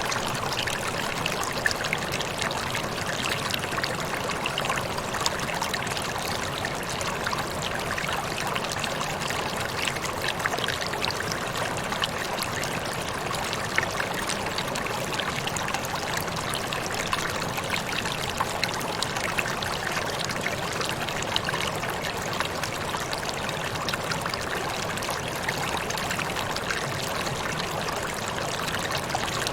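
Waterfall: a steady rush of falling water, with many small splashes and droplets spattering through it.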